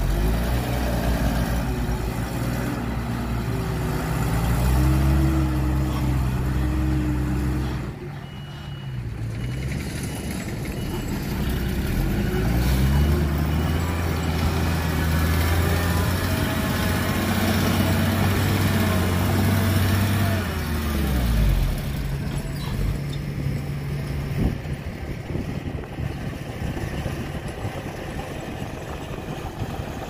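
Dump truck's diesel engine revving hard under load twice, each run held high for several seconds before dropping off about 8 s and 21 s in, as the loaded truck strains in soft, wet soil. After that it runs lower and steadier while the tipper bed is raised.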